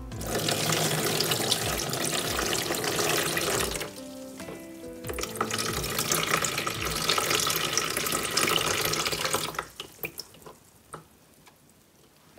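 Rinse water pouring and splashing from a tilted glass bowl of soaked black glutinous rice into a plastic basin in a sink. It comes in two pours with a short break between them, and the second trails off about ten seconds in into a few drips.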